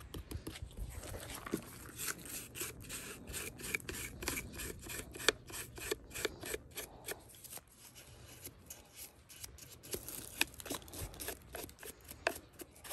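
Irregular scraping, rubbing and light clicking as a chainsaw is cleaned and handled by hand, its chain removed. There is a quieter stretch about eight seconds in.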